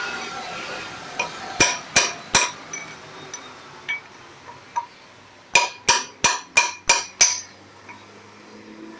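Hammer blows on metal knocking the old bearing race out of a 1989 Volkswagen Golf's brake drum, each strike ringing. There are three strikes, a pause, then a quicker run of six at about three a second.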